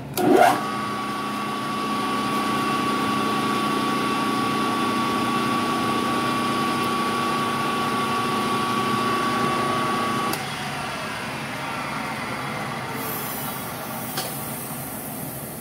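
Drill press motor starting with a quick rising whine and running at a steady pitch while a number 53 drill bores a small hole in a brass bevel gear. The motor is switched off about ten seconds in and winds down, with a single click near the end.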